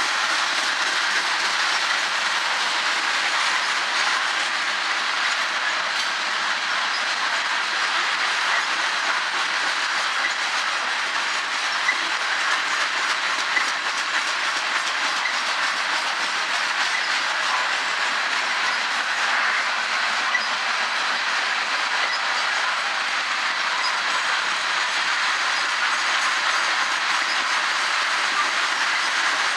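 Loaded coal cars of a freight train rolling past, a steady, even noise of steel wheels running on the rails with no breaks.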